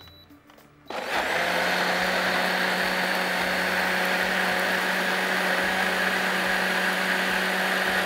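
Electric countertop blender switched on about a second in, running at a steady speed as it purées a thick sauce of onion, ground cashews, chillies, sauces and a little water.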